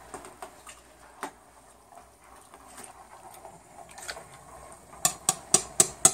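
Metal spoon stirring thick sauce in a stainless steel stockpot, with light scattered clinks against the pot. Near the end comes a quick run of about five sharp clinks.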